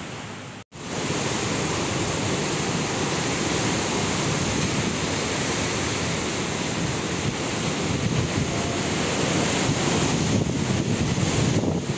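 Strong cyclone wind and heavy rain in a steady, continuous rush of noise, with wind buffeting the microphone. The sound drops out briefly under a second in, then picks up with gustier patches near the end.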